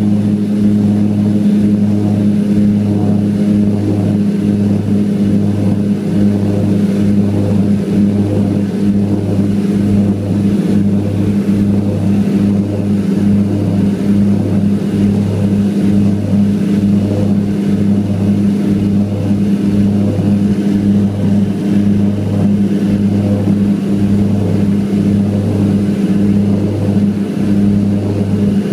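Propeller engine of a passenger plane at climb power just after takeoff, heard from inside the cabin: a loud, steady low drone that throbs in a regular beat about three times every two seconds.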